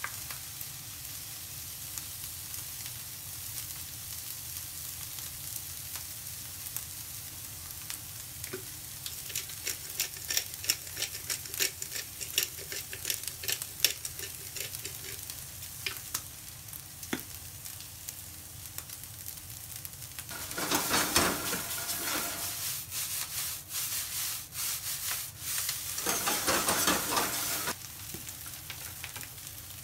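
Fried rice sizzling steadily in a hot wok. Through the middle come light clicks and taps as pepper is shaken over it. Two louder spells of a metal ladle scraping and stirring the rice around the pan follow, the second near the end.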